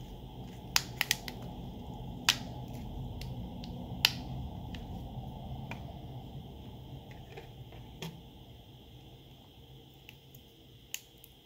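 Sharp clicks and snaps of small plastic and metal phone parts as an internal cover plate is unclipped and lifted off an opened Oppo Reno 3 smartphone. Most of the clicks come in the first few seconds, over a low steady hum.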